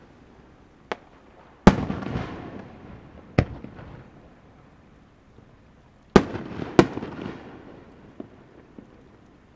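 Aerial firework shells bursting: five sharp bangs, the loudest about a second and a half in and two close together after about six seconds, each trailing off in an echo, then two faint pops near the end.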